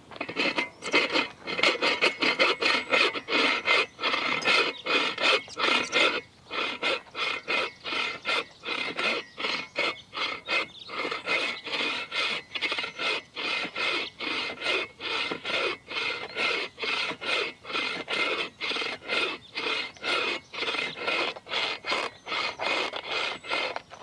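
Bow saw cutting through a dry, weathered dead log with steady rasping push-and-pull strokes, about two a second.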